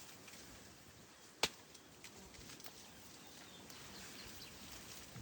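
Quiet forest background hiss with one sharp click or snap about a second and a half in, and a few faint ticks.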